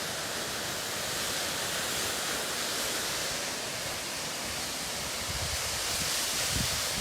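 Steady rushing roar of a waterfall, heard from an overlook. From about five seconds in, low gusts of wind buffet the microphone.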